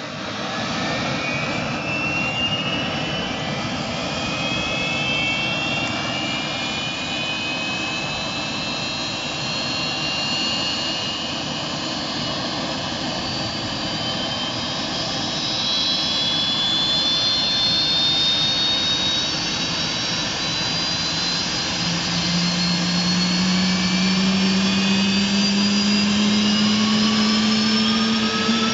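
F-16 fighter jet engine starting up on the ground: a loud, continuous jet rush with high whines that climb slowly in pitch. From about 21 seconds in, a lower tone joins and rises, and the noise grows louder as the engine spools up.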